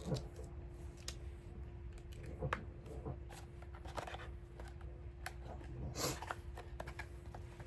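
Scattered light clicks and rustles of a powder blush compact and its packaging being handled, over a faint steady hum.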